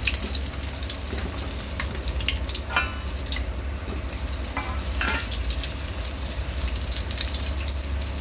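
Chicken leg pieces deep-frying in hot oil in a kadai: a steady sizzle with dense crackling pops, over a steady low hum.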